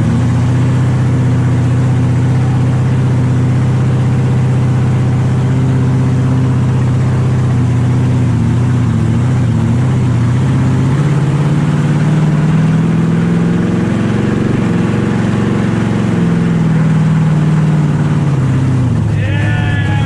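Supercharged 1,700 hp burnout-car engine, heard from inside the cabin while driving. It runs steadily at low revs, then the revs climb and ease off twice in the second half.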